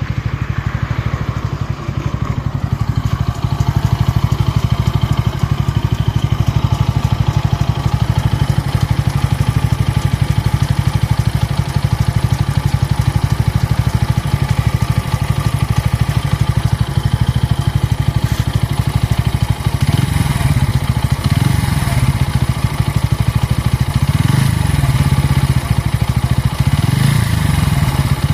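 Bajaj Pulsar N160's single-cylinder engine idling steadily, then revved in several short throttle blips near the end. It is the extra engine noise the owner says appeared after the first service, when the engine lost its former smoothness, cause unknown.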